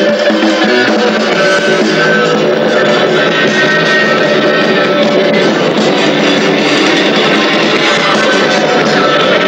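Rock band playing live, guitar to the fore, a loud dense sound with no deep bass as picked up by a camcorder microphone.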